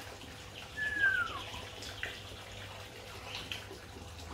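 Water sloshing and splashing as a hand scrubs the glass viewing window of a koi pond with a filter sponge. About a second in comes one short squeak that falls in pitch.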